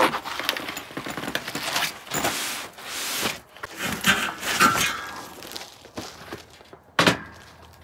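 Camping gear being handled: a fabric storage bag rustling and scraping, with scattered bumps and a sharp knock about seven seconds in.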